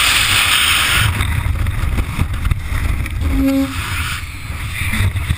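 Wind buffeting a helmet-mounted GoPro in freefall, loud and hissing, which changes suddenly about a second in to a lower, gentler rush of wind under an open parachute. A short low tone sounds about three and a half seconds in.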